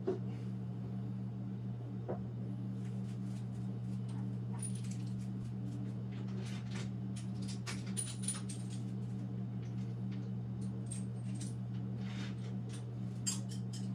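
Scattered light metal clinks and taps as a milling vise and a piece of stock are handled and set up on the mill table, over a steady low hum.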